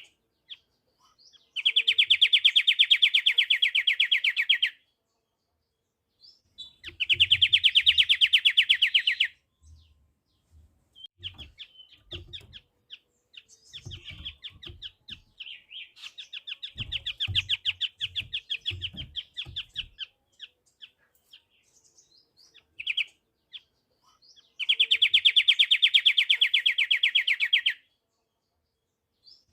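Pied triller (kapasan kemiri) singing: three loud, fast trills of about three seconds each, with a softer, broken run of chirps in between that builds into a trill.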